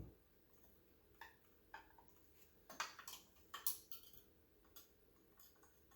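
Faint scattered clicks and taps of small scale-model crane parts being handled, with a small cluster of them about three to four seconds in.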